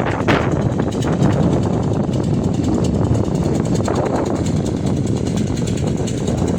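Multi-cylinder engine of a tin-mining suction pump machine, running steadily under load.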